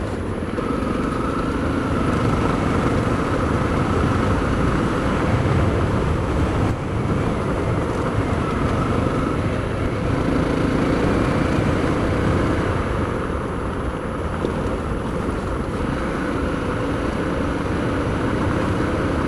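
Honda CRF250L's single-cylinder engine breathing through an FMF Q4 HEX slip-on exhaust at a steady road cruise, with wind rush over the microphone; the engine eases off slightly past the middle, then holds again.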